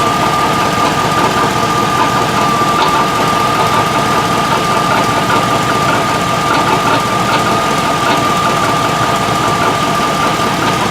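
2003 Chevrolet Tahoe V8 idling, with rapid ticking and a steady high tone through the running. The owner hears an exhaust leak and an intermittent noise that he takes for a broken flex plate.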